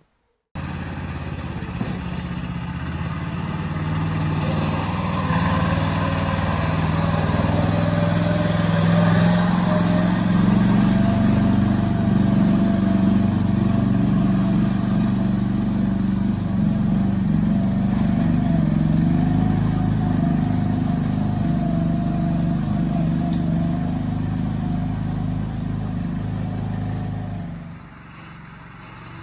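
The 420cc Duromax single-cylinder engine of a homemade mini 6x6 running under load as the machine drives off, growing louder a few seconds in. The level drops sharply near the end.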